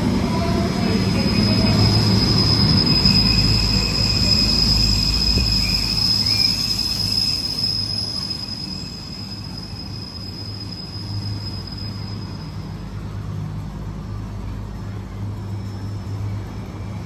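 CPH 'Tin Hare' railmotor running into the platform and stopping: one steady high-pitched squeal as it brakes, fading out about twelve seconds in, over the low hum of its engine, which keeps running after it stops.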